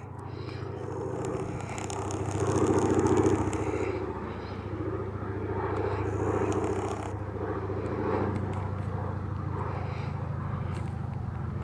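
Float plane's propeller engine droning steadily, swelling louder and easing off twice.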